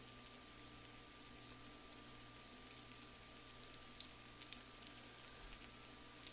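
Perch roe frying gently in butter in a pan on low heat: a faint hiss with scattered small crackles and pops, two of them a little louder about four and five seconds in, over a steady low hum.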